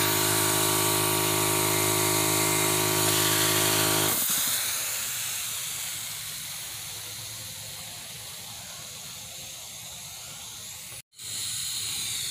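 Air compressor for a pneumatic nail gun running steadily, then shutting off suddenly about four seconds in. A soft hiss follows and slowly fades, and the sound cuts out briefly near the end.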